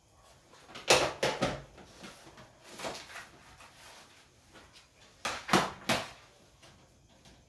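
Knocks and clatter of objects handled on an office desk: a burst of knocks about a second in as a telephone handset is put down, a single knock near three seconds, and three sharp knocks about five and a half seconds in.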